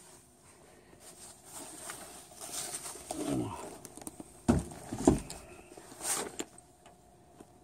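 Close handling noises: rustling, a short sound falling in pitch, then two sharp knocks about half a second apart a little past the middle, and a brief hiss near the end.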